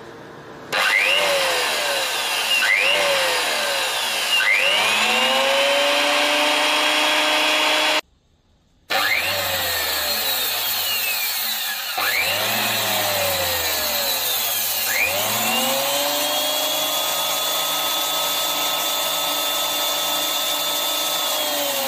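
TOTAL TTKP15001 wood thickness planer's motor and belt drive test-run with no wood, just after a new drive belt was fitted. It is switched on and off several times, each start a rising whine that dies away as it coasts. Then it is left running at a steady pitch, and this happens twice with about a second of silence in between.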